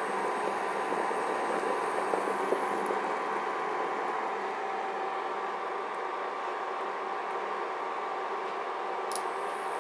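Induction cooker running with a steady whir and a faint high whine, while salted water boils in a lidded stainless steel pot.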